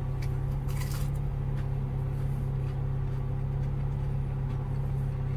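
Steady low hum of a car idling, heard from inside the cabin, with a brief crunch of a bite into a breaded chicken finger about a second in.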